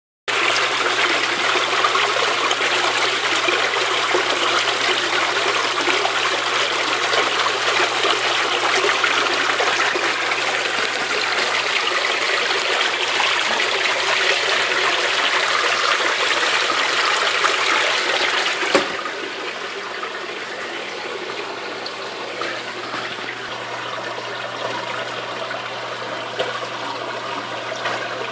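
Water splashing and churning steadily as an aquarium closed-loop circulation system jets water through its return nozzles into the tank, with a low steady hum beneath. About two-thirds of the way through the splashing drops and turns duller.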